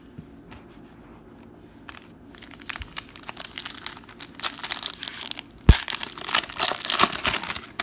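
Foil trading-card pack wrapper crinkling and tearing as it is ripped open by hand. It starts after about two seconds of near quiet, with one sharp knock a little past the middle.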